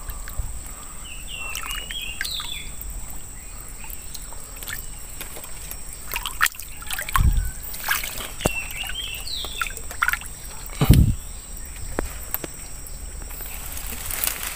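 Water sloshing and trickling as someone wades in a shallow stream, with two heavier splashes about seven and eleven seconds in. A bird calls twice, a short run of chirps each time.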